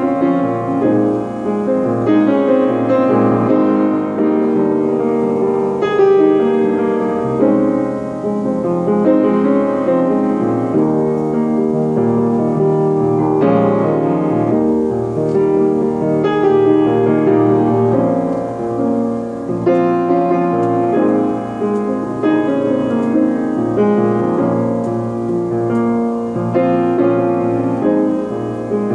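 Upright piano played with both hands without a break: a rock-style ballad, with chords under a melody.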